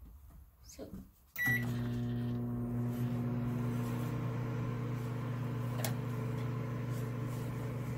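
Hamilton Beach microwave oven started from its keypad: a short beep about a second and a half in, then the oven runs with a steady low hum.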